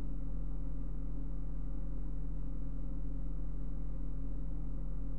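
A steady low hum with a faint hiss underneath.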